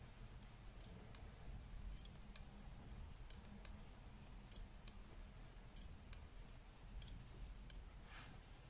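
Faint, irregular clicking of Knit Pro knitting needles tapping together as stitches are knitted, over a low steady hum.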